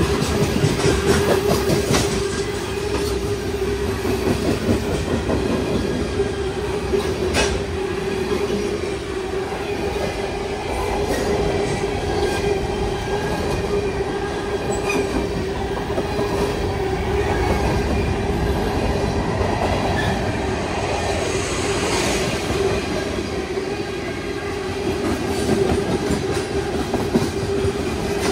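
Freight train of covered hopper cars rolling past: a continuous rumble of wheels on rail with a steady humming tone over it, and a few sharp clicks as wheels cross rail joints.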